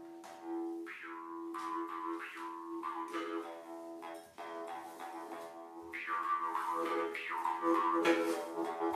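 Jaw harp played: a steady drone, plucked over and over, with its overtones sliding up and down as the mouth shape changes. It grows louder toward the end.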